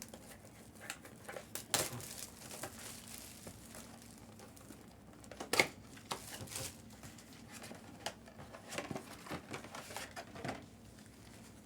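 Packaging being handled: plastic wrap crinkling and tearing, with scattered clicks and a sharper knock about five and a half seconds in.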